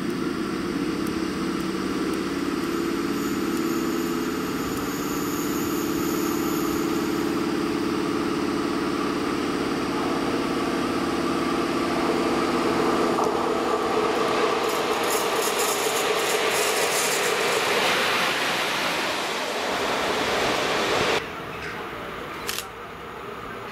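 EP07 electric locomotive running light and approaching, with a steady hum of several tones. A rushing wheel-and-rail noise grows louder as it nears, and the hum rises slightly in pitch. About 21 seconds in the sound drops suddenly to a quieter background rumble.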